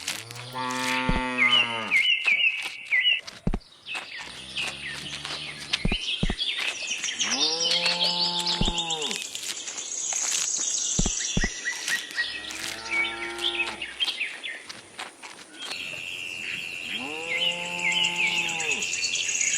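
Cattle mooing: five long moos a few seconds apart, each rising and falling in pitch, some deeper than others. Birds chirp in the background near the start and again near the end.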